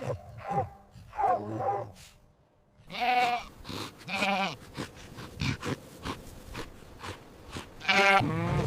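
A dog barking a few times, then after a short pause sheep bleating: two wavering bleats about three and four seconds in, and another near the end.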